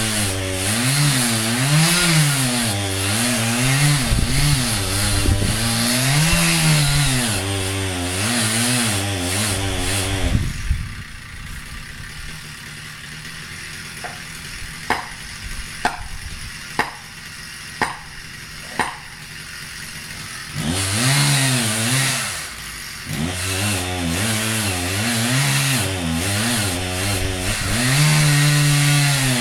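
Chainsaw cutting wood, its engine pitch rising and falling as it works under load. About ten seconds in it drops to a low idle, with five sharp knocks about a second apart. It then comes back up and cuts again.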